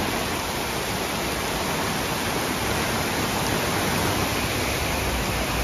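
Torrential rain pouring down, mixed with muddy floodwater rushing across a road, a steady roar. A low rumble builds near the end.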